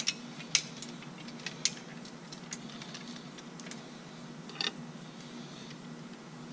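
Small bungee cords being hooked around surf rods and a bicycle frame: irregular sharp clicks and ticks, roughly one a second, with a short cluster of them about four and a half seconds in, over a faint low steady hum.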